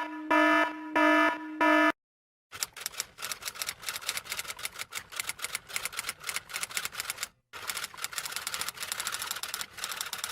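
A sound effect of a short electronic beep repeated about three times, then, after a brief pause, a long run of rapid typing clicks with one short break partway through.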